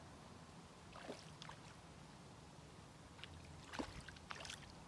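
Faint small splashes of water at the river surface, a few brief ones about a second in and a cluster near the end, as a small fish hooked on the pole line is played in.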